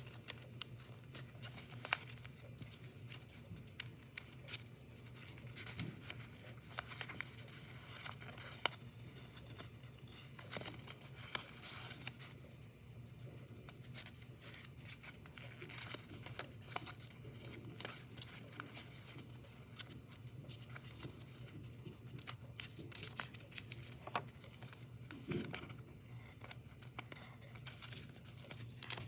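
Blue origami paper being folded and creased by hand: irregular crisp crackles and rustles of the paper, over a low steady hum.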